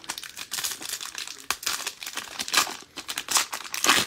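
Foil wrapper of a 2022 Panini Mosaic Baseball hobby pack being torn open and crinkled by gloved hands. It makes a quick run of crackles, loudest about two and a half and four seconds in.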